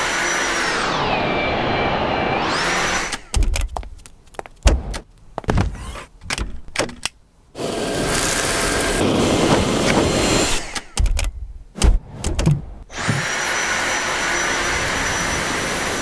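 Dyson V7 Animal cordless vacuum cleaner running in three stretches, a steady rushing suction with a high whine; in the first stretch the whine dips in pitch and rises again. Between the stretches come runs of irregular knocks and thuds.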